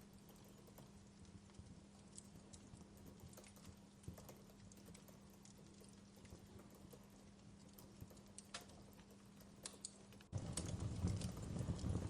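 Wood fire crackling in a fireplace, with scattered sharp pops and snaps. About ten seconds in it turns suddenly louder and fuller, with a low rumble of flames under the pops.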